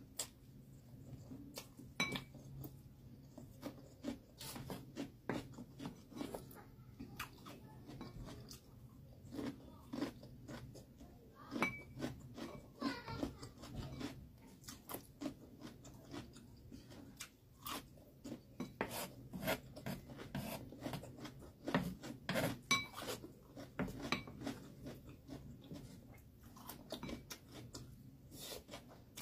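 Close-up eating sounds: chewing spicy instant noodles, with many small wet mouth clicks and a few short ringing clinks of a utensil against the dishes.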